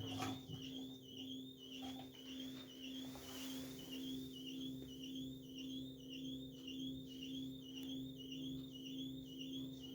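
LG TurboWash washing machine squeaking during its TubClean cycle: a high, chirping squeak repeating about twice a second, evenly spaced, over a steady machine hum.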